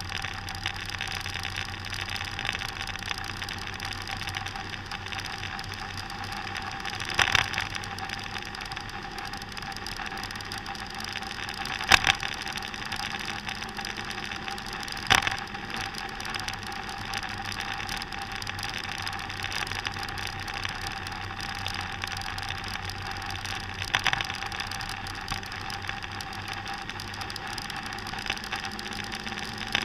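Motor scooter engine running steadily on the move, with a steady whine and road noise. Four short sharp knocks break through, the loudest about twelve seconds in.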